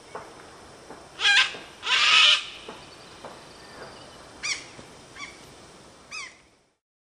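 Birds calling: two loud calls about a second and two seconds in, then three shorter calls about a second apart, over a faint steady background hiss. The sound cuts off near the end.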